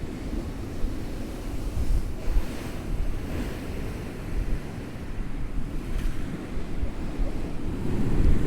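Storm surf on the North Sea breaking and rushing in high winds, with heavy wind buffeting the microphone as a steady low rumble.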